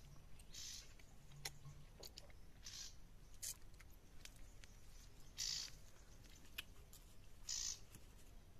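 Faint sounds of someone eating fish curry: chewing, with four short mouth smacks a couple of seconds apart and light clicks in between.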